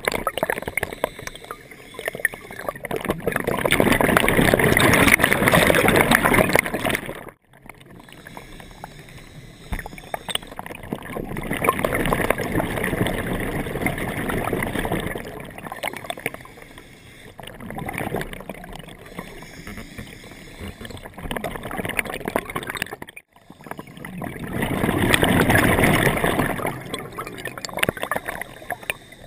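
Scuba diver's regulator breathing: exhaled bubbles rush past in long swells every several seconds, with quieter inhalations between, muffled through the camera's underwater housing.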